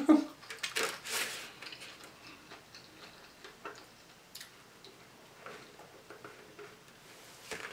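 Quiet sipping of a drink through a straw from a cup, with scattered small clicks and mouth sounds.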